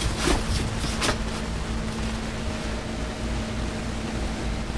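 Steady hiss with a low electrical hum, and a few light clicks in the first second.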